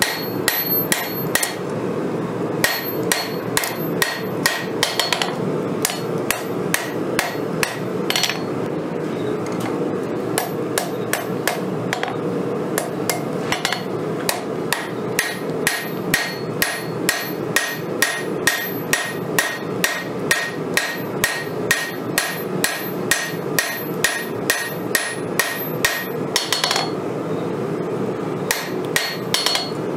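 Hand hammer striking hot steel on an anvil in a steady rhythm of blows, each with a bright metallic ring, with a few brief pauses, as a knife blank of 5160 steel is forged. A steady rushing noise runs underneath.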